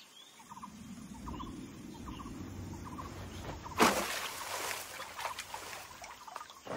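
A bird hits the water with one loud splash about four seconds in, with a wash of water noise after it. Behind it runs a steady background of short trilled calls, repeating about every half second.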